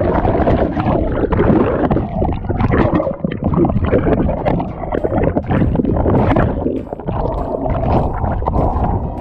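Churning, bubbling water heard by a submerged action camera: loud, dull turbulence with irregular surges of bubbles and water rushing past the camera housing.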